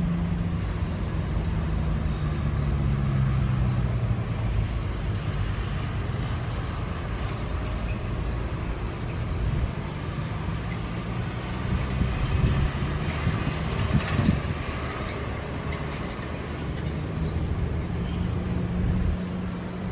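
Airbus A330 airliner on final approach, its jet engines giving a steady rumble, with a low hum that drops a little in pitch about three seconds in.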